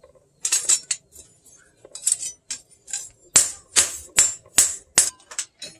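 Hand hammer striking a steel knife blade on a small post anvil: a few scattered blows at first, then a steady run of about two to three blows a second from about halfway, each a sharp metallic clink.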